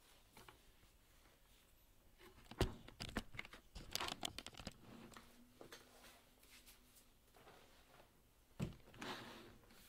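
Handling and movement noises close to the microphone: a knock about two and a half seconds in, then a second or two of clicks and crinkling, and another knock with a short rustle near the end.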